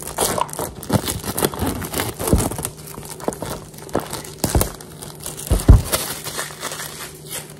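Clear plastic shrink-wrap being peeled off a cube box and crumpled in the hands: irregular crinkling and crackling, with a couple of louder handling thumps around the middle.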